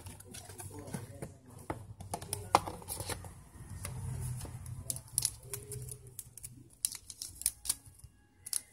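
Handling noise from unboxing a smartphone: irregular clicks, taps and rustles of the phone in its plastic film and of the cardboard box and its accessories being moved about by hand, over a low rumble.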